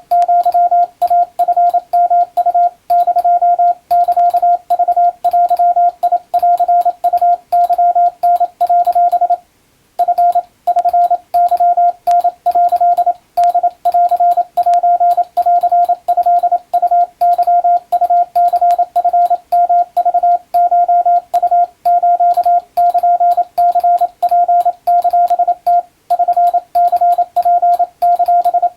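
Morse code practice tone: a single steady mid-pitched beep keyed on and off in rapid dots and dashes, sending Japanese wabun code telegram text. There is one brief pause about a third of the way through.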